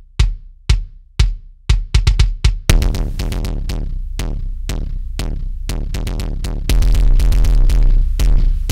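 Kick drum hits played back through SSL listen mic compressors for an A/B comparison: separate hits at first, then from about three seconds in a dense, rapid run of hits that gets louder about seven seconds in.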